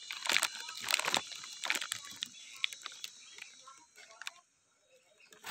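Rustling and light crackling of katuday leaves, stems and flowers handled close to the phone: a run of small clicks and rustles that thins out and goes nearly quiet near the end.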